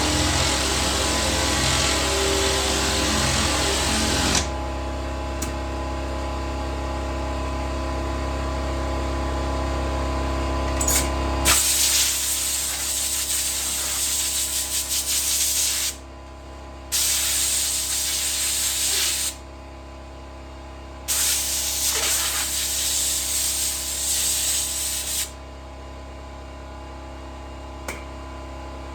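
A machine runs steadily with a low hum and stops about a third of the way in. Then a compressed-air tool gives three hissing bursts, each a few seconds long.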